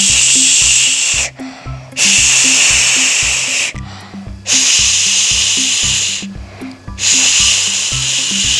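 Steam-like hissing in four long hisses about two and a half seconds apart, for pretend cooking in a toy cooker, over background music with a steady repeating bass line.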